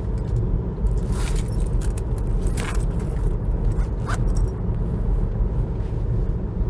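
Steady low rumble of road and engine noise inside a moving car's cabin. Three short rustling, clinking sounds about one, two and a half, and four seconds in, as a handbag is handled.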